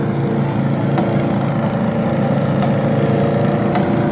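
Racing lawn mower engines running steadily, with no rise or fall in pitch.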